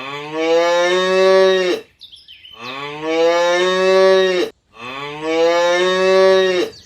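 Cow mooing: three long moos, each about two seconds, so alike that they are the same recorded moo played three times.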